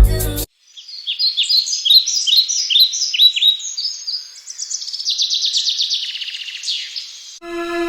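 A songbird singing: a run of quick, falling high chirps that speed up into a fast trill. Music plays briefly at the start and comes back in near the end.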